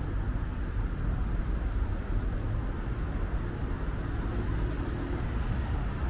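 Steady city street traffic: cars passing on a busy road, heard as a continuous low rumble.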